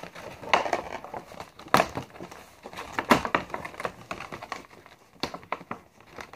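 Cardboard doll box and its clear plastic packaging rustling and crinkling as hands work to free the doll, with a few sharp crackles among the rustle.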